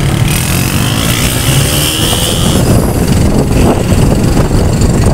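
A vehicle engine running under way, with a steady rushing noise over it. A thin high whine sounds for about two seconds near the start.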